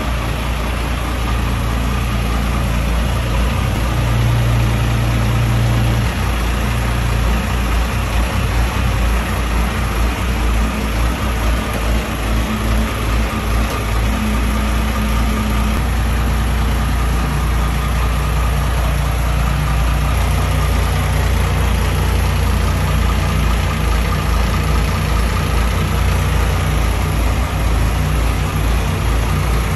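Mitsubishi 550-horsepower turbocharged marine diesel engine running steadily, heard up close in the engine room.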